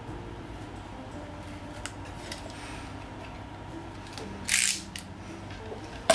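Utility knife scraping old cork filler off a leather shoe sole: faint scratches and ticks, one short loud scrape about four and a half seconds in, and a sharp click near the end.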